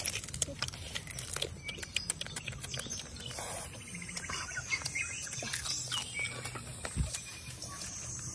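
Crackling and clicking of grilled crab shells being broken and chewed, with birds chirping in the background and one low thump near the end.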